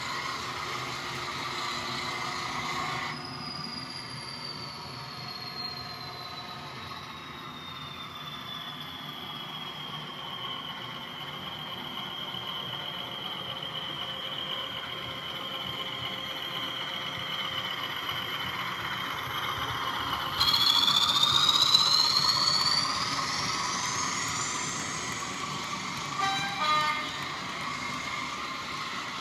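Model diesel locomotive running a train of tank wagons through the station. A high whine falls and settles, then climbs sharply about twenty seconds in and grows louder, with two short toots near the end.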